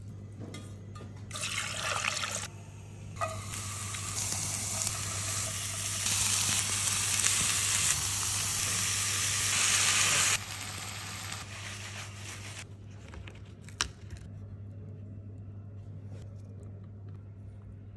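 Chopped bell peppers and onions sizzling in a frying pan: a hiss that builds from about three seconds in and cuts off abruptly around ten seconds, with a shorter burst of the same hiss just before it. A steady low hum lies under it all.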